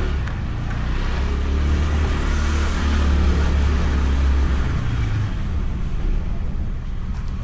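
Honda Beat scooter's small single-cylinder engine running steadily under way, with wind and road noise on the bike-mounted microphone; it eases off a little over the last couple of seconds.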